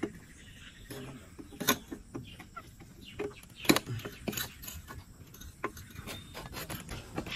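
Scattered sharp metallic clicks and clinks from a Yamaha R15 V4's exhaust parts being handled and fitted under the engine, the loudest about halfway through.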